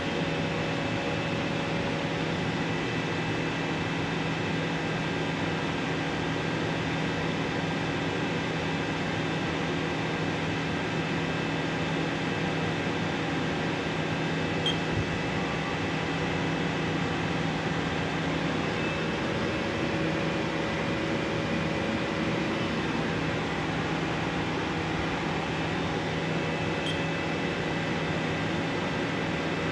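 Haas VM3 CNC vertical machining centre running, with its table traversing along its axes: a steady machine hum with several constant tones. Two faint ticks come about halfway through and again near the end.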